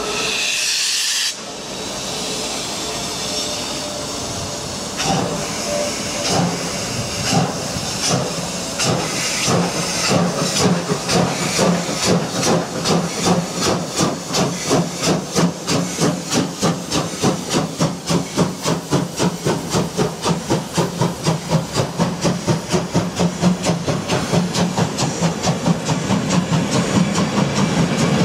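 German class 50 two-cylinder 2-10-0 steam locomotive starting a train: a loud hiss of steam in the first second, then exhaust chuffs that begin slowly about five seconds in and quicken steadily as it gathers speed, with the hiss of open cylinder drain cocks.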